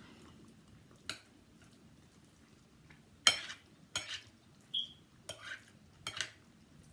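Eating utensil clinking and scraping against a dish, in about six separate strikes, the loudest a little past three seconds in.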